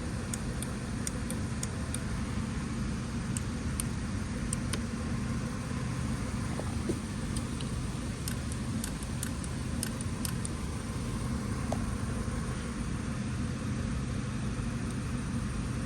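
A steady low mechanical hum with scattered light clicks and taps.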